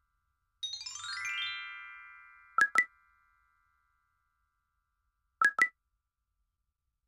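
Edited-in electronic sound effects over a silent track: a quick run of bell-like notes falling in pitch that rings out over about two seconds, then two pairs of short beeps, the second pair about three seconds after the first.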